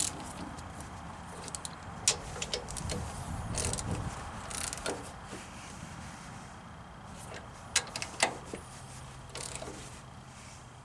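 Irregular metallic clicks and clinks of a ratchet and socket tightening the mounting bolts of a hydraulic control valve, some coming in short runs of clicks.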